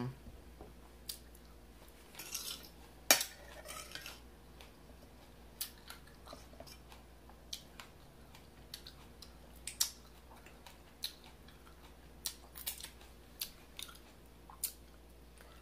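Metal fork clinking and scraping on a dinner plate in scattered, irregular sharp clicks, the loudest about three seconds in, with soft chewing between them.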